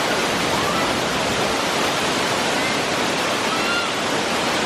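Curtain waterfall rushing: a steady, even sound of falling water.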